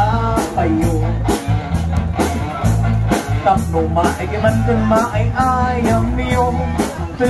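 Live band playing an upbeat dance song with a singing voice, a steady drum beat, guitar and bass.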